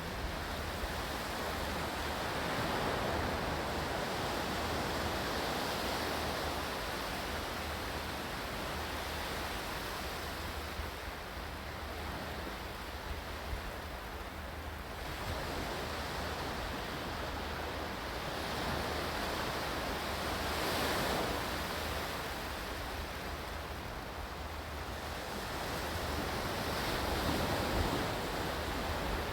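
Ocean waves washing in, a continuous rushing surf that swells and recedes every several seconds.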